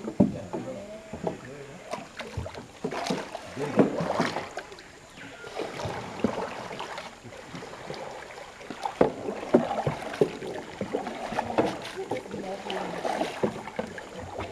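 Canoe paddles dipping and pulling through still water, with irregular knocks and splashes as the strokes go on.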